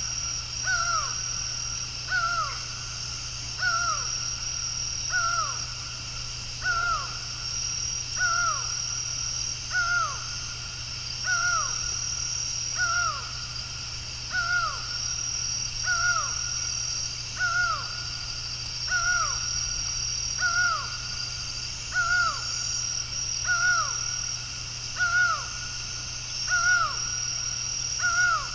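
Laughing falcon (acauã) calling over and over, one short falling note about once a second. A high, steady buzz comes and goes in short stretches behind it.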